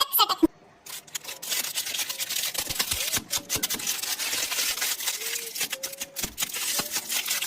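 Plastic candy wrappers and packaging crinkling and crackling as they are handled and opened, a dense stream of small crackles. A brief, quieter gap comes about half a second in, before the crackling begins.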